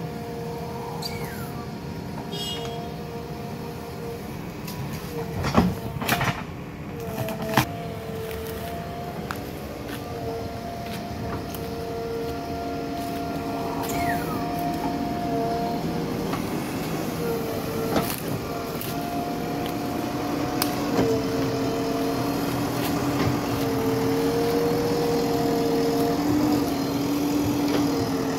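JCB 3DX backhoe loader's diesel engine running under load while the backhoe digs, with a steady whine that steps up and down in pitch as the arm works. A few sharp clunks come about five to eight seconds in, and the machine grows louder toward the end.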